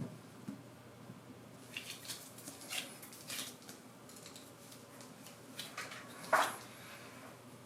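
Light hand-work sounds of a home guitar repair: a series of short scrapes and clicks, with a louder brief scrape about six seconds in.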